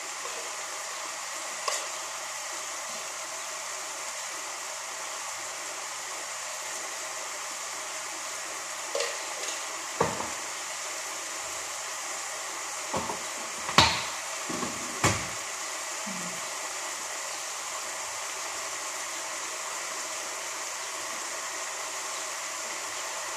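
Chicken and vegetables frying in a pan with a steady sizzling hiss, broken by a few clinks and knocks of metal cookware and utensils, the loudest about 14 seconds in.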